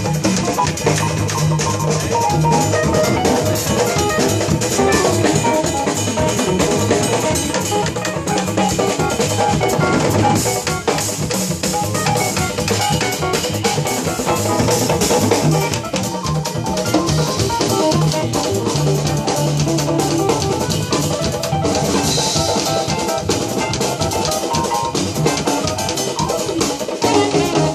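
A live jazz band plays a steady groove. A drum kit and Uruguayan candombe tambores (chico, repique and piano drums), struck by hand, carry the beat under piano and saxophone.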